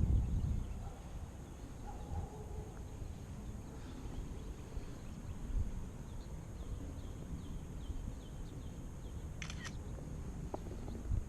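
Outdoor ambience: low wind rumble on the microphone, a string of faint high chirps like a small bird's, and one brief harsh rasp about nine and a half seconds in.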